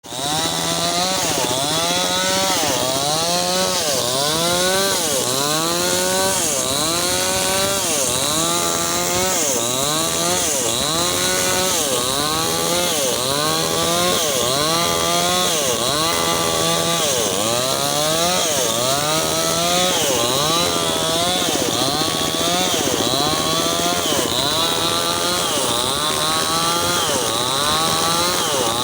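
Mini chainsaw cutting lengthwise through wood to split it. The motor's pitch sags and recovers over and over, about every second and a half, as the saw bogs under each push into the cut and then speeds back up, over a steady high chain whine.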